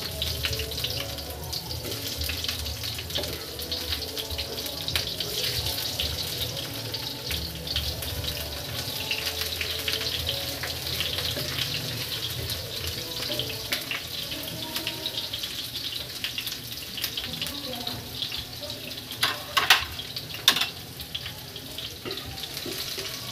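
Sliced onion and garlic sizzling in hot oil in a frying pan, a steady crackling hiss as they are sautéed and stirred with a spatula. Two louder knocks come near the end.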